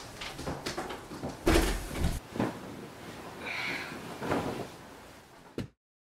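Bedclothes rustling in several bursts as a person shifts in bed and a duvet is pulled about; the loudest burst, about a second and a half in, comes with a dull thump. The sound cuts off suddenly near the end.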